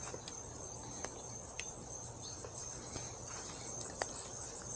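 Crickets chirping in a steady, high, pulsing chorus, with a few faint clicks.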